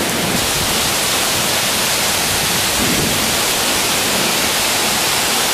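Heavy downpour: a steady, even hiss of torrential rain falling.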